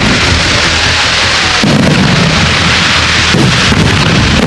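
Aerial fireworks going off in a dense, continuous barrage of booms and crackling.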